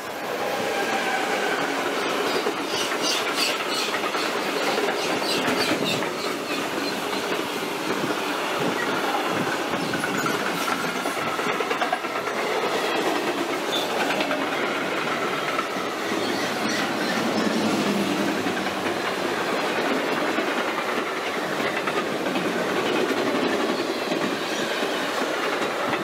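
A passenger train passing close by on the station tracks, its wheels clattering over the rail joints. The rush of noise sets in abruptly and stays loud for the whole pass.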